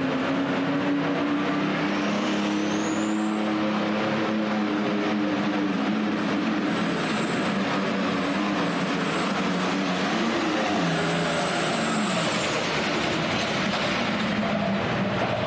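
Turbocharged super stock pulling tractor engine running at full throttle under load. A high turbo whistle rises about two seconds in and holds. The engine note drops at about ten and a half seconds, and the whistle fades soon after as the pull ends.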